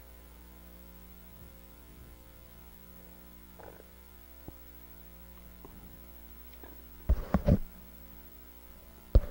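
Steady electrical mains hum on the audio feed, with a quick cluster of loud thumps about seven seconds in and another single thump just before the end.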